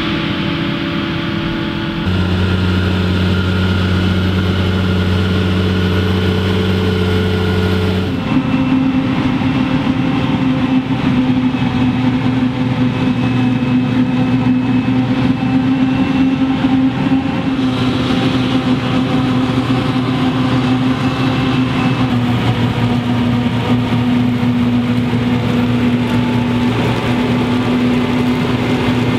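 Heavy farm machinery running steadily: a self-propelled forage harvester chopping maize into a silage trailer pulled alongside by a John Deere 7280R tractor, the engines holding a steady hum. The pitch and mix of the engine tones change abruptly about two seconds and again about eight seconds in.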